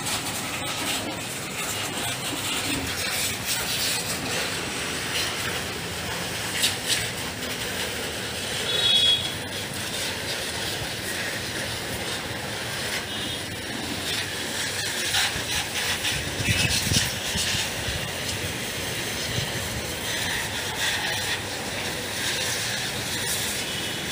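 High-pressure water jet spraying a motorcycle in a wash bay, a steady hiss of spray with a few short louder bursts now and then.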